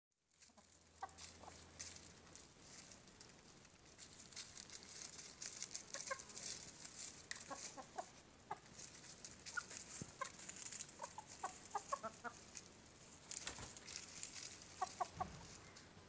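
Young cockerels and a hen clucking softly in short runs of quick calls while scratching and pecking through dry leaf litter, the leaves rustling throughout. Louder scuffling near the end.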